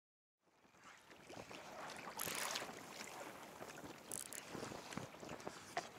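Wind buffeting the microphone over water lapping against a kayak, fading in after a brief silence, with two short louder gusts.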